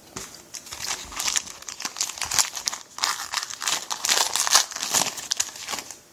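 Wrapper of a pack of football trading cards crinkling and tearing as it is handled and opened, a run of irregular crackles that stops just before the end.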